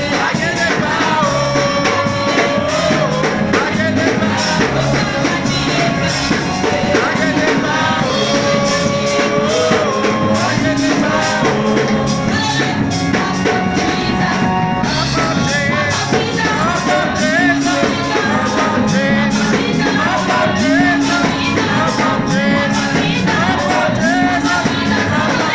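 Music: a song with singing over instrumental backing with a steady beat.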